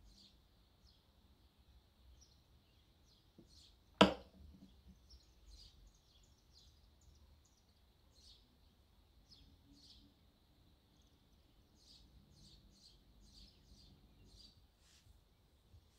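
A ceramic coffee cup set down on its saucer with one sharp clink about four seconds in. Faint, quick high ticks run under it.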